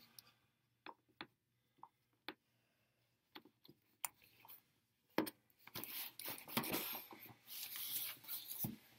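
A few small sharp clicks as a folding pocket knife is opened, then from about five seconds in several seconds of scraping and rustling as the blade slits the packing tape on a cardboard shipping box and the box is shifted on the table.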